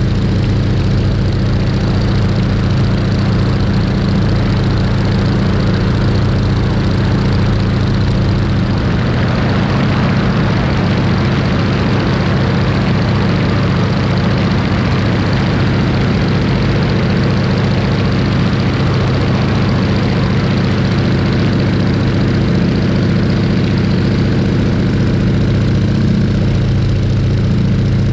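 PZL-104 Wilga 35's AI-14RA nine-cylinder radial engine and propeller running steadily in flight, heard from outside on the airframe. A rushing noise over the engine grows stronger about nine seconds in.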